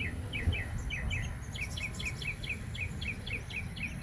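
A small bird chirping in a rapid, steady run of short high chirps, often in pairs, several a second, over a low wind-like rumble.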